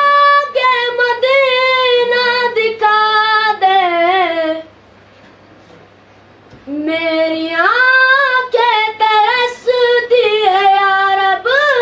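A boy singing solo with no accompaniment: a high voice with ornamented, wavering notes, in two long phrases with a pause of about two seconds in the middle.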